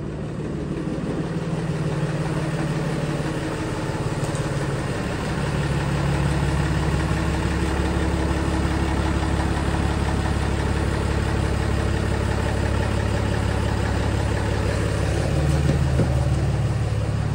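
Ram heavy-duty pickup truck's engine idling steadily as the truck creeps slowly into the garage.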